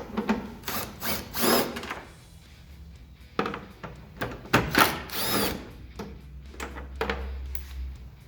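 Cordless drill/driver running in a handful of short trigger pulls, its pitch rising and falling as it backs out the screws holding a plastic tailgate trim panel. The longest runs come about a second in and about five seconds in.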